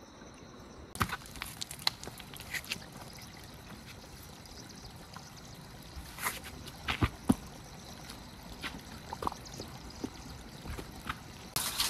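A thin trickle of water running over rock, with a scattering of footsteps and sharp knocks on stone.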